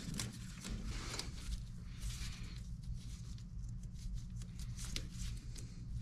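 Gloved hands fastening a plastic zip tie around a starter's wiring plug: scattered soft plastic clicks and rustling.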